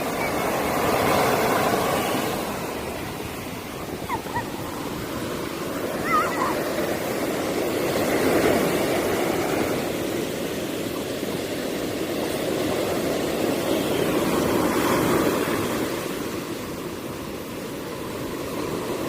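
Sea waves breaking and washing up a beach, the surf swelling and fading about every six or seven seconds.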